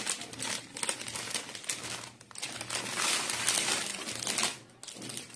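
Clear plastic packaging crinkling and rustling in irregular bursts as a new garment is pulled out of its bag, loudest around the middle.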